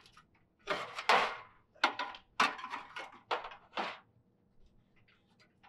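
Aluminium extension ladder and its top bracket scraping and clattering against the house wall as they are shifted into place: five or so short, harsh bursts over about three seconds.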